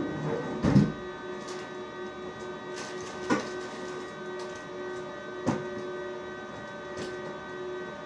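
A steady machine hum made of several held tones, with a few sharp knocks on top: the loudest about a second in, others near three and a half and five and a half seconds, and a weaker one near the end.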